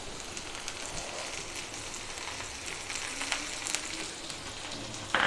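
Sliced onions and freshly added chopped garlic sizzling in hot oil in a frying pan, a steady crackling fry with a few faint ticks.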